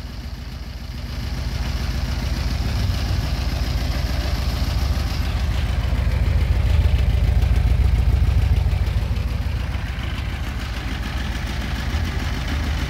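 1967 Porsche 912's 1.6-litre air-cooled flat-four engine idling through short open exhaust pipes, running well on freshly rebuilt carburettors. Its low, even pulse swells louder over the first couple of seconds and eases back a little after about ten seconds.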